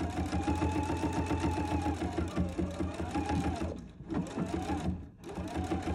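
Sewing machine running fast, stitching binding onto a knit dress edge through a quilt binder attachment. The motor dips twice near the end, slowing or pausing for a moment, then picks back up.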